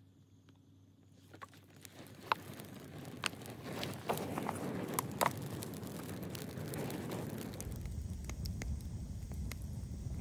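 Stick-and-twig campfire catching after being doused with lighter fluid: sparse sharp pops at first, building about a third of the way in to steady, dense crackling as the fire takes hold.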